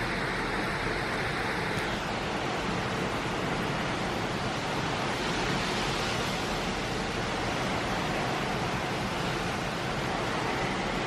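Steady rush of hurricane rain and wind, the hiss turning brighter and fuller about two seconds in.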